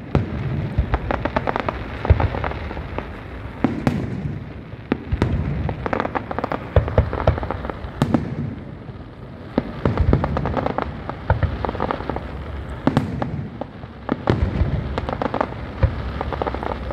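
Fireworks display: a continuous barrage of crackling and bangs, with a few louder booms several seconds apart.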